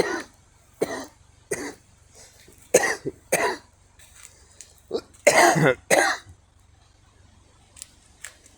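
A series of short, harsh coughs in small clusters over the first six seconds or so, then two faint clicks near the end.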